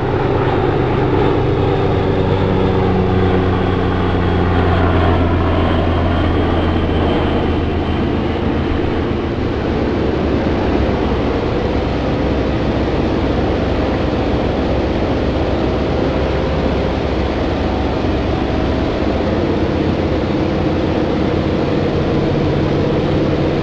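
Biplane engine and propeller running steadily in flight, a loud continuous drone, heard together with a heavy rush of wind from the slipstream.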